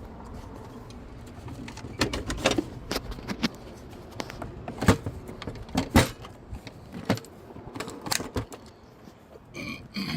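Scattered clicks and knocks of tools and metal gate-latch hardware being handled during a repair, with a short high squeak near the end.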